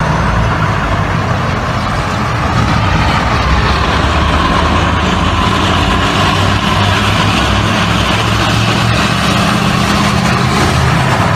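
Armored vehicle engines running on a street with road traffic: a steady low engine hum under a broad, even noise, growing slightly louder about two seconds in.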